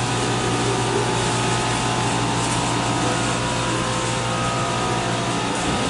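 Steady machinery and ventilation drone in a brewery canning and storage room: a constant low hum with several steady tones over an even hiss.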